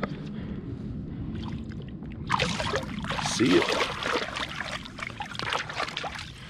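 Water splashing at the surface as a sheepshead is released by hand over the side of a boat. The splashing starts about two seconds in and dies down near the end.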